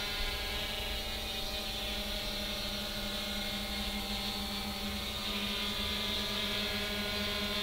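3DR Iris+ quadcopter's electric motors and propellers humming steadily in hover, a set of held tones over a hiss.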